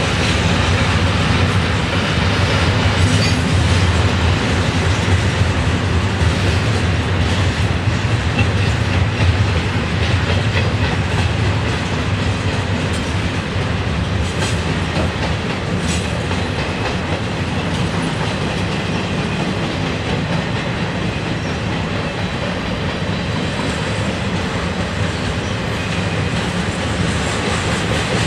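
Double-stack intermodal freight train's loaded well cars rolling past, a steady rumble of steel wheels on rail with a few faint clicks.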